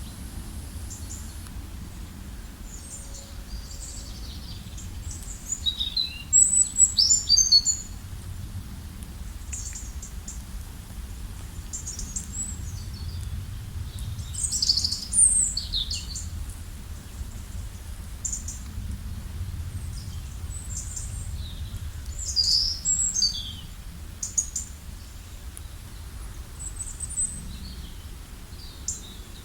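Several songbirds chirping and trilling in short, high bursts, busiest about a quarter and half of the way through and again near three quarters, over a steady low rumble.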